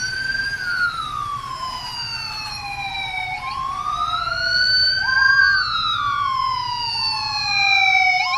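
Police siren wailing in slow rising and falling sweeps, with a second wail overlapping it through the middle.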